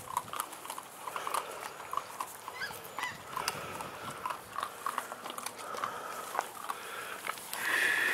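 A litter of puppies eating dry kibble from metal bowls: many small crunches and clinks with brief little squeaks and snuffles. A louder rustle comes near the end.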